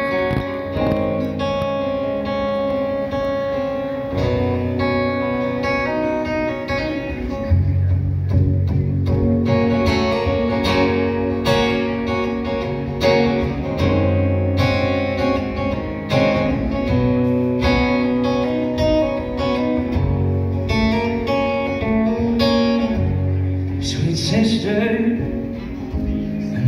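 Acoustic guitar played solo, strummed chords with low notes that change every second or two.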